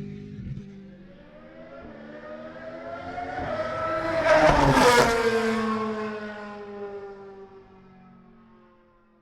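Williams FW29 Formula One car's 2.4-litre Toyota V8 passing by at speed. The engine note climbs in pitch and volume as it approaches, is loudest about four to five seconds in, then drops in pitch and fades away.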